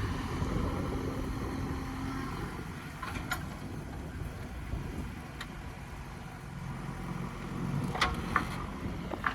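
Diesel engine of an excavating machine running steadily, with a few sharp knocks scattered through.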